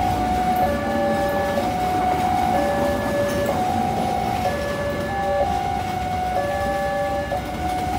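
Railway level-crossing warning alarm sounding a two-tone high-low signal, each tone lasting a little under a second. It is heard over the continuous rumble of a train.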